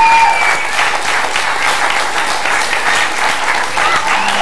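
Audience applauding: a dense, steady patter of many hands clapping, with a few thin held tones over it at the start and again near the end.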